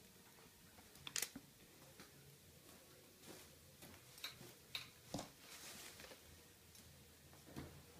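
Faint footsteps, taps and clothing rustle as a person walks up to a leather sofa and sits down on it, with a sharper click about a second in.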